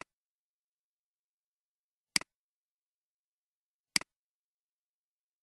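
Three computer mouse clicks, each a quick double tick of button press and release, about two seconds apart, over dead silence.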